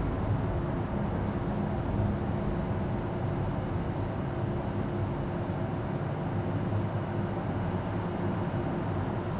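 An MTR M-Train metro train standing at the platform with its doors open, its onboard equipment running as a steady low hum.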